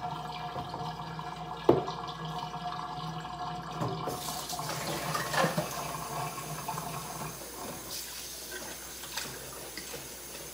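Kitchen tap running hot water into a sink, over a steady hum that fades out about three-quarters of the way through. A short knock comes about two seconds in.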